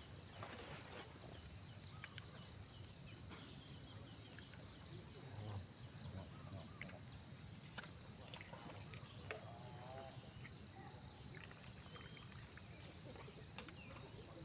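Insect chorus: a steady high-pitched trill that runs on throughout, pulsing more sharply from about halfway in.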